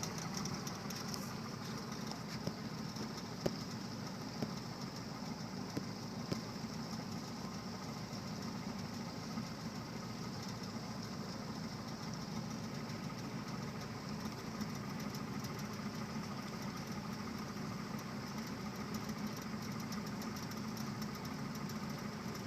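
Boat motor running steadily, a constant low hum, with a few small knocks a few seconds in.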